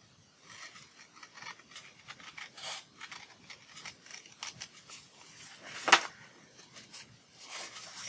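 Large-handled arthritis scissors cutting through printed paper: a run of short snips with paper rustling, and one much louder stroke about six seconds in.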